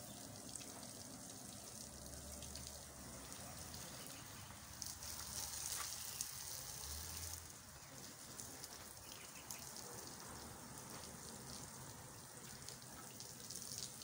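A water jet hissing and spattering against the front and loader bucket of a JCB 3CX backhoe loader as it is washed. The hiss is steady, and louder for a couple of seconds around the middle.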